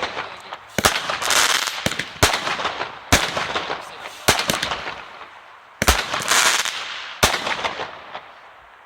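Display fireworks going off: about six sharp bangs about a second apart, two of them trailed by a long hiss, with the noise dying away near the end.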